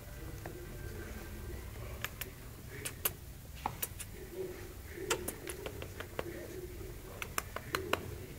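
Irregular sharp clicks and taps of a puppy scrambling on a tiled floor and mouthing a hand, coming in small clusters, with soft low cooing sounds coming and going underneath.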